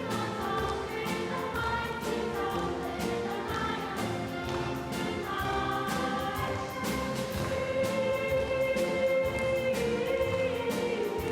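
Children's choir singing with orchestral accompaniment, holding a long note through the second half.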